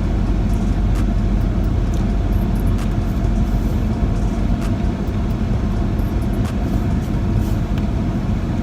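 Steady road and engine rumble heard inside a car's cabin while driving, with a faint steady hum above it.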